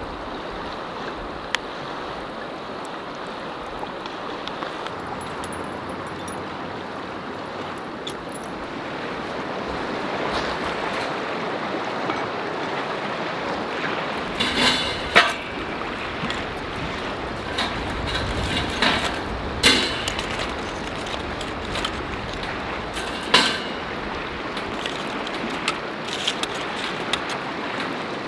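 A river rushing steadily, with several sharp metal clanks and knocks from a cast-iron Dutch oven's lid and fire tongs as hot coals are set on the lid.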